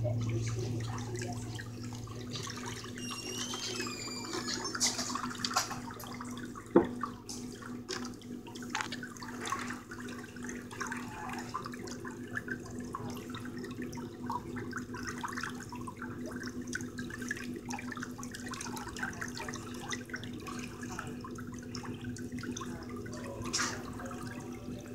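Pedicure spa foot bath's whirlpool jet churning and bubbling the water, over a steady low hum from the tub's pump. A single sharp click about seven seconds in.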